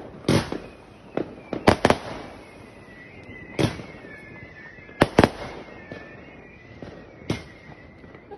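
Aerial fireworks bursting: about eight sharp bangs at uneven intervals, some coming in quick pairs.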